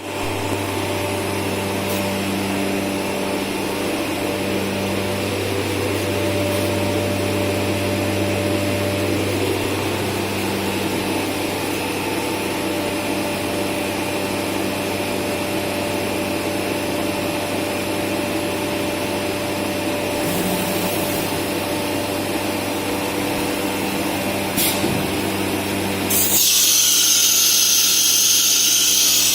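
VENO UC481-1325 CNC router with automatic tool changer running, a steady machine hum with a constant low drone. About 26 seconds in, a louder, higher-pitched noise sets in and holds.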